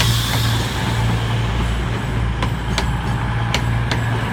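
CrossCountry Class 220 Voyager diesel multiple unit standing at the platform with its underfloor diesel engines idling, a steady low hum. A hiss of air fades out at the start, and a few sharp clicks come through about halfway and near the end.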